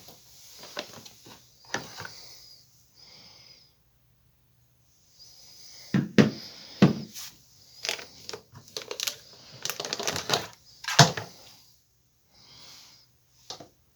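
Handling noise from unpacking: irregular clicks, knocks and rustling of a cordless drill and its packaging being handled. There is a brief dead gap a few seconds in, and the sharpest click comes about eleven seconds in.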